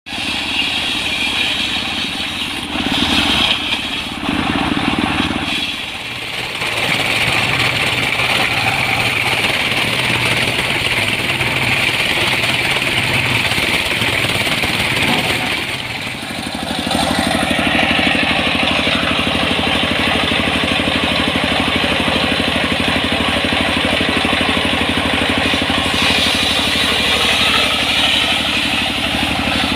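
Circular saw blade ripping a split wadang log into boards, a steady hissing whine, driven by a belt from a single-cylinder diesel engine that runs at a constant even chug underneath. The cutting sound dips briefly twice, and the engine's regular pulse is plainest in the second half.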